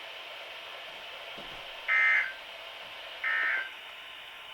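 Emergency Alert System end-of-message data bursts played over a weather radio: two short, buzzy digital squawks about a second and a half apart over steady radio hiss, marking the end of the warning broadcast.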